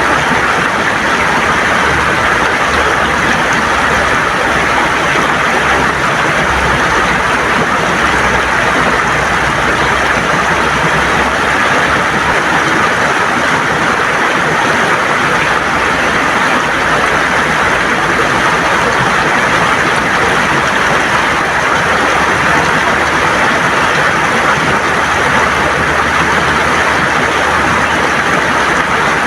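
River water gurgling and rushing over stones: a steady, unbroken wash of noise with a low rumble beneath.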